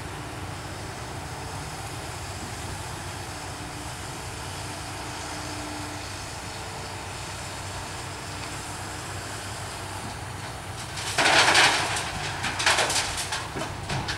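Hydraulic excavator's diesel engine running steadily. About eleven seconds in, a loud crash and clatter as broken asphalt is dropped from the excavator into the steel bed of a dump truck, followed by a few smaller clatters.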